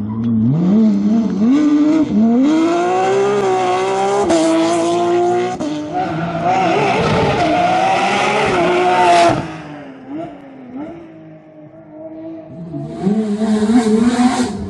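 Porsche 911 rally cars' flat-six engines at full throttle, revving high and stepping up through the gears as they pass, with a loud burst of tyre noise in the middle. The sound drops to a quieter spell about two-thirds through, then another car comes by loud near the end.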